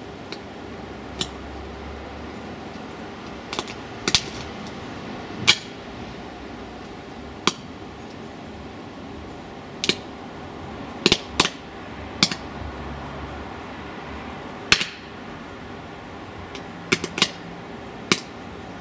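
Arc welder's stick electrode briefly striking arcs on chips of a circuit board: about fifteen sharp cracks, irregularly spaced and some in quick clusters, over a steady hum.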